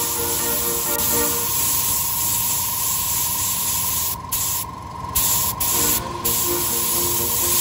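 Airbrush spraying paint onto a plastic model part as a steady hiss. The hiss cuts out a few times for a moment each, about four to six seconds in, as the trigger is released, while a lower steady noise of the spray booth keeps running.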